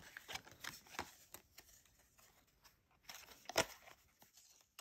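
Playing cards handled by hand: soft clicks and rustles of card stock sliding and tapping together, with a louder card slap about three and a half seconds in.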